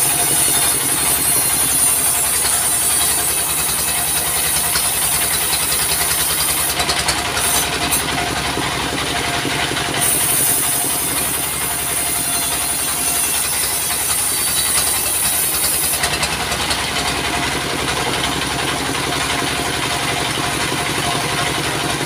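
Diesel engine running steadily, driving a portable bandsaw sawmill's blade through a log. A high hiss from the cut runs alongside it and drops away for a few seconds in the middle.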